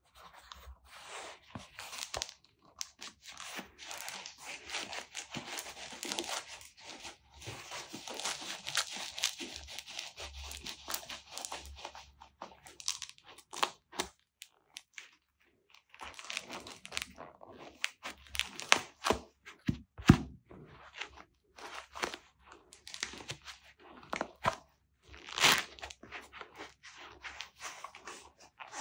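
Close handling noise of goalkeeper gloves being worked on the hands: latex and fabric rustling, rubbing and crinkling, dense for the first twelve seconds or so. After a short pause come scattered scrapes and sharp clicks, with one short, loud rasp about two-thirds of the way through.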